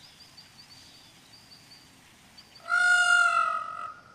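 Faint, high bird chirps repeating in quick succession, then, nearly three seconds in, a loud drawn-out animal call about a second long, holding a steady pitch and fading at its end.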